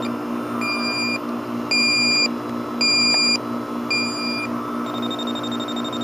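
Electronic refrigerant leak detector alarming: its steady high tone gives way to four beeps about a second apart, then returns near the end. The probe is at the back of an evaporator coil, and the alarm marks a refrigerant leak in the coil.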